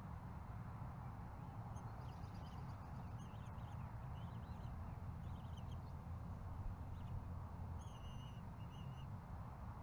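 Faint, scattered high-pitched bird chirps, with a short trill near the end, over a steady low background rumble.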